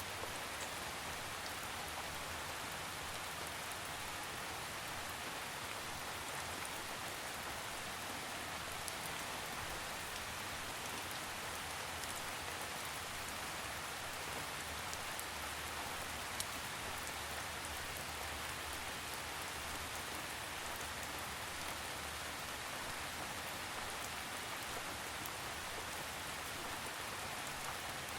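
Steady rainfall on a surface, an even hiss with small scattered drop ticks.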